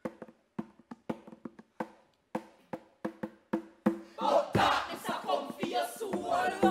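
Sparse, sharp drum hits with a short ring. About four seconds in, a group of performers cries out and wails together over the beat.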